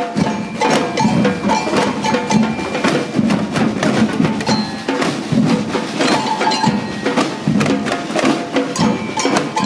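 Samba street band playing a steady, driving rhythm on drums and hand percussion, with short ringing notes repeating over the beat.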